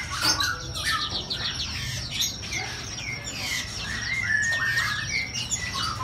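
A chorus of many caged songbirds chirping and calling at once, short overlapping chirps and quick rising and falling notes.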